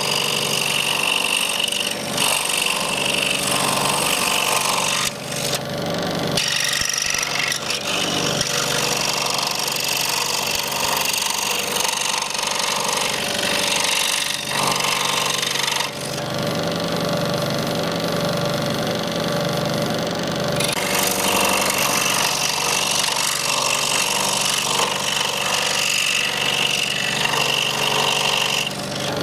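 A 16-inch scroll saw running, its reciprocating blade cutting through a walnut shell fed by hand; the steady buzz of the saw changes in texture several times as the nut is turned into the cut.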